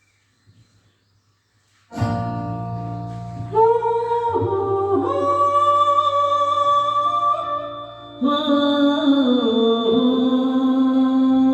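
A song starts about two seconds in: a voice singing long held notes that slide from pitch to pitch, over a plucked-string accompaniment.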